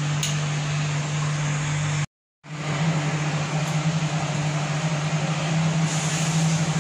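Steady machine hum with a broad hiss behind it, cut off for a moment about two seconds in.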